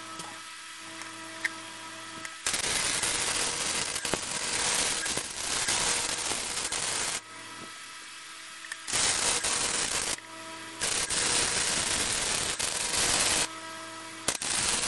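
Chicago Electric 90-amp flux-core wire welder laying a bead on mild steel plate: the arc crackles and spatters in several runs, the longest about five seconds. A steady hum fills the pauses between them.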